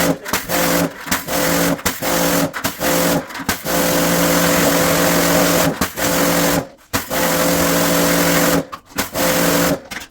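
An electric motor-driven tool or cleaning machine running in repeated bursts, a steady hum with a hiss, switched on and off many times: short bursts at first, then longer runs of two to three seconds.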